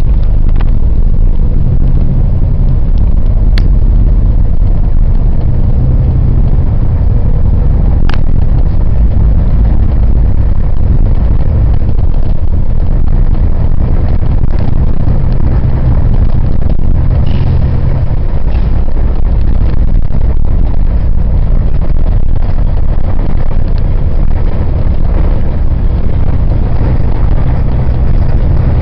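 A vehicle drives along at speed, heard from on board: a loud, steady low rumble of engine and road noise with no change in pace. Two sharp clicks stand out, about 3.5 and 8 seconds in.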